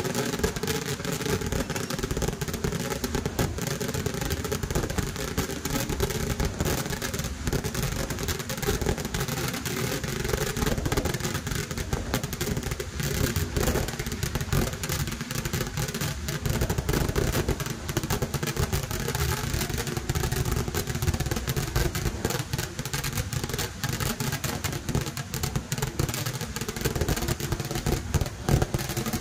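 Temple fireworks barrage: a dense, unbroken run of explosions from ground-fired shells and firecrackers, the bangs following so fast that they merge into one continuous rumble.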